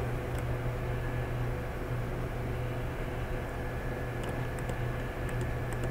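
Steady low electrical hum with an even hiss, the background noise of a desktop microphone recording, with a few faint short ticks near the end.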